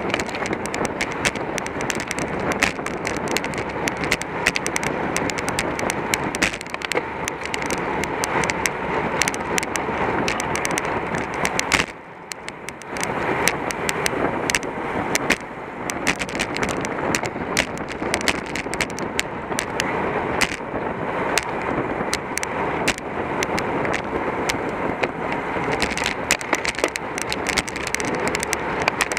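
Wind rushing over the microphone with road and drivetrain noise from a road bicycle ridden at race speed, with a constant scatter of sharp clicks and rattles. The noise drops briefly about twelve seconds in.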